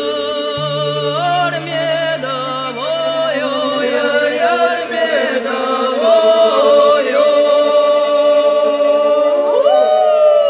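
Slow folk-style chant sung by voices in long held notes that move in steps, over a low steady drone that drops away about halfway through. Near the end the voice glides up into one long held note.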